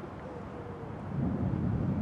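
Wind rumbling on the microphone outdoors, swelling about a second in, with a bird calling faintly over it.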